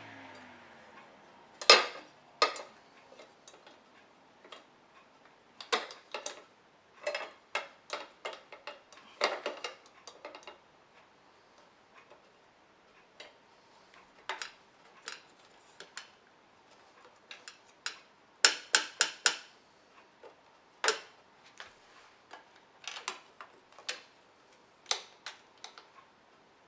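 The Hoover Senior's motor hum dies away in the first second. Then come irregular sharp clicks and taps of hard parts being handled on the vacuum cleaner, some single and some in quick runs of three or four.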